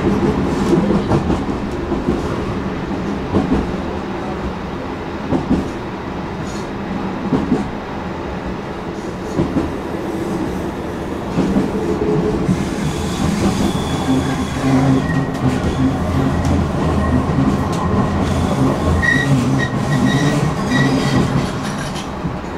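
Stockholm Tvärbanan light-rail tram running along its track, with a steady rumble of wheels and motors and scattered knocks from the track. In the second half there is a faint high squeal from the wheels.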